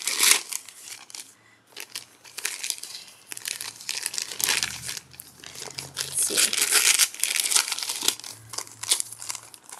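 White wrapping paper crinkling and rustling as a package is unwrapped by hand, in uneven bursts, with a brief lull about a second and a half in and the loudest handling past the halfway point.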